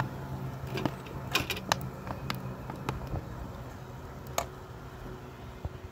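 Metal ladle clinking and scraping against a frying pan while potatoes are stirred: about half a dozen sharp, irregular knocks.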